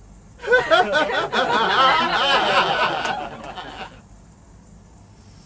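Laughter, quick and choppy, lasting about three and a half seconds and then stopping.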